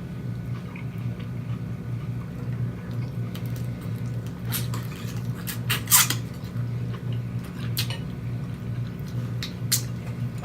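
Close-up mukbang eating sounds: wet mouth smacking and chewing of seafood, with sharp cracks and crackles, loudest about six seconds in, over a steady low hum.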